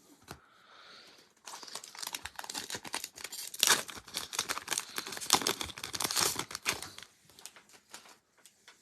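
Football trading-card pack wrapper being torn open and crinkled, a dense run of crackling that starts about a second and a half in and dies away about seven seconds in.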